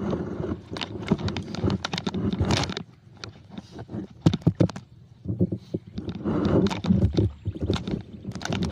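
Irregular knocks and clatter in a small fishing boat as a gill net with a caught catfish is hauled in by hand.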